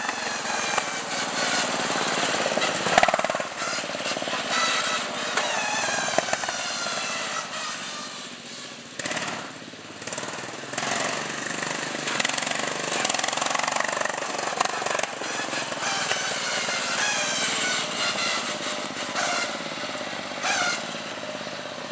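Riding lawn tractor's small engine running loud and rough as it drives, its pitch falling and rising with the throttle, with a sharp knock about three seconds in.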